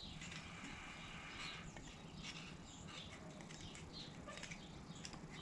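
Faint scratching and small clicks of a pick working a rubber O-ring into the bore of a tractor hydraulic valve part.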